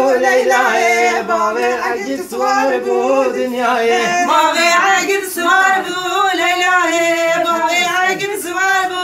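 Voices singing a folk song together without instruments, holding long notes that waver in pitch, with a new phrase starting on a rising note about four seconds in.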